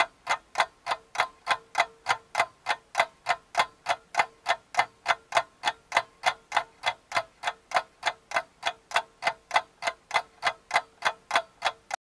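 Clock ticking steadily and quickly, about three to four ticks a second, laid over title cards as a sound effect. The ticking cuts off abruptly at the end.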